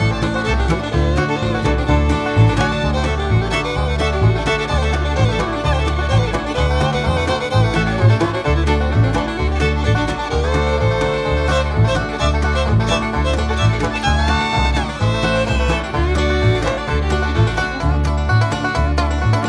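Upbeat bluegrass background music with banjo and fiddle over a steady bass beat.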